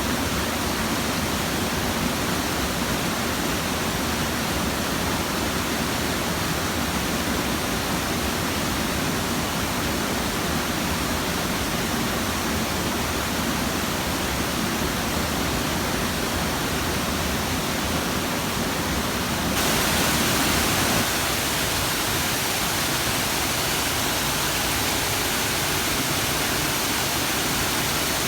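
Waterfall running high with extra water after a typhoon: a steady, heavy rush of falling water. About twenty seconds in the sound turns brighter and is briefly a little louder.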